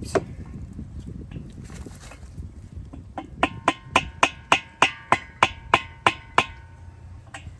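A hammer tapping a handrail bracket through a towel: one knock at the start, then about a dozen quick taps at roughly four a second from about three seconds in, with a faint metallic ring. The taps are driving the bracket the last quarter turn snug onto the post, beyond where it can be turned by hand.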